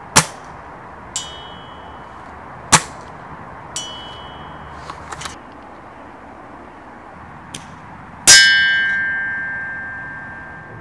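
Shots from a spring-powered airsoft sniper rifle (ASG M40A3): two sharp cracks, each followed about a second later by a faint ring as the BB strikes a metal target. Near the end, a much louder metallic clang rings and fades over a couple of seconds.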